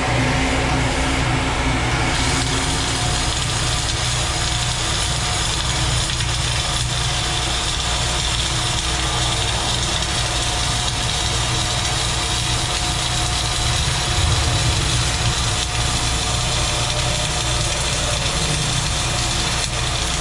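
Arc welding in the overhead fillet (4F) position: a steady arc hiss over a low machine hum, the hiss growing stronger about two seconds in.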